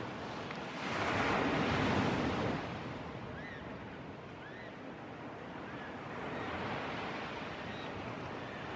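Sea surf breaking and washing in, a steady rushing that swells loudest about a second in and eases off after about two and a half seconds.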